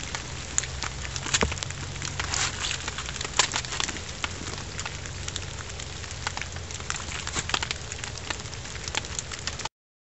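Irregular crackling and rustling of dry leaf litter and brush under a person's feet, with a wool blanket and cord being handled. It cuts off suddenly near the end.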